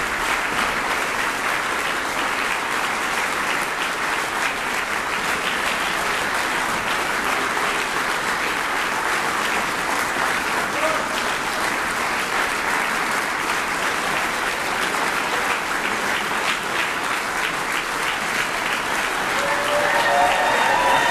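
Audience applauding steadily, with dense clapping that swells a little louder near the end.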